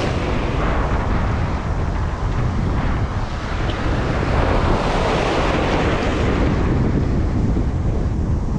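Wind buffeting the microphone over the wash of small waves breaking in shallow water, the surf swelling about halfway through.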